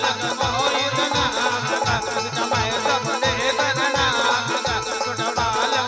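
Live devotional bhajan music: a steady hand-drum beat with a shaker-like rattle under a wavering melody line.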